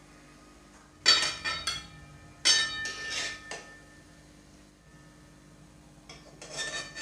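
Metal utensils clinking and scraping against a kadai and other cookware as fried palm-fruit fritters are lifted out of the oil. The clatter comes in three clusters: about a second in, at about two and a half seconds, and again near the end.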